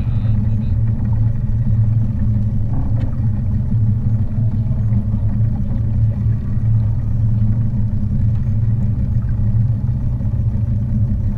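Steady low drone of a small boat's outboard engine running.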